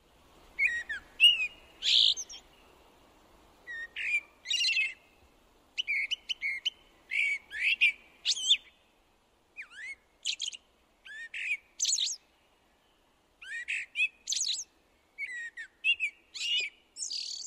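A songbird singing: a string of short phrases of whistles and twitters, each about a second long, with brief pauses between them.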